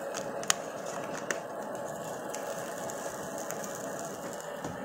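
A kraft paper takeaway food box being folded shut by hand: its cardboard flaps creak and click, with a sharp click about half a second in and another just after a second. A steady noise runs underneath.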